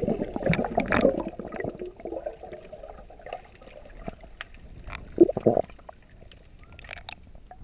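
Muffled water gurgling and bubbling heard with the microphone under the sea surface, fading over the first couple of seconds, with a short louder gurgle about five seconds in and faint scattered clicks.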